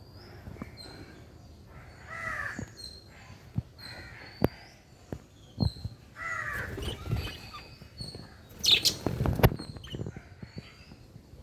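Lovebirds calling with harsh, squawky chirps, mixed with a thin, repeated high chirp and several sharp taps. The loudest moment is a harsh, noisy burst about nine seconds in.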